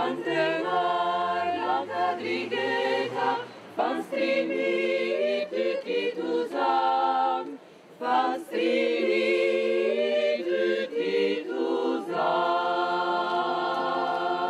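A choir singing unaccompanied, holding sustained chords in several phrases separated by brief pauses for breath.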